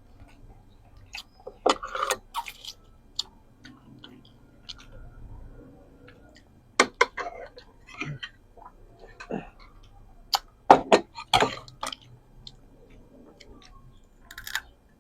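Close-miked eating: chewing and wet mouth clicks and smacks, coming in clusters with quieter pauses between.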